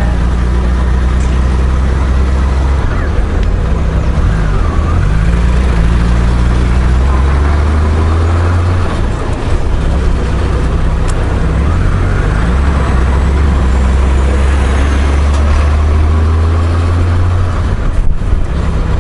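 Honda Gold Wing GL1500 flat-six engine running while riding in town traffic, its note shifting up and down a few times in the first half, then holding steady, over a steady rush of wind and road noise.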